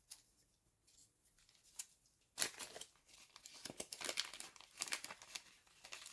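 Packaging being handled and crinkling: a few faint ticks at first, then a denser crackle from about two and a half seconds in.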